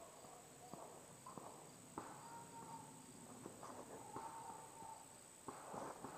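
Faint, steady, high-pitched drone of insects, with rustling and light steps through brush and tall grass that grow louder near the end.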